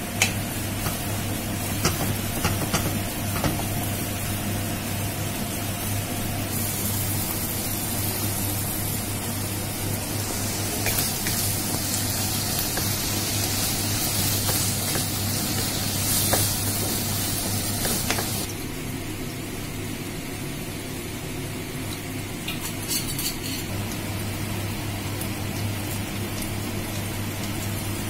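Minced lamb sizzling as it fries in a non-stick pan, stirred and scraped with a wooden spatula, with a steady low hum underneath. The sizzle grows louder about a quarter of the way in and eases back about two-thirds through.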